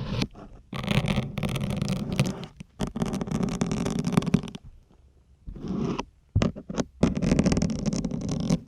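Syringes pushed into a stiff grey foam sponge, each push a drawn-out crackling rasp. There are three long pushes of about a second and a half, with a short one between the second and third.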